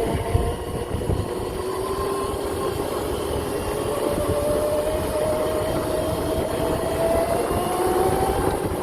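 Whine of a Razor MX650 pit bike's upgraded 5000 W electric motor under way, its pitch climbing slowly as the bike picks up speed, with a low rumble underneath.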